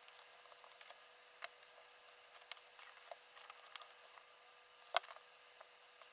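Small metal pen-kit parts clicking and tapping as a bolt action pen is fitted together by hand: a dozen or so light, irregular clicks, the sharpest about five seconds in.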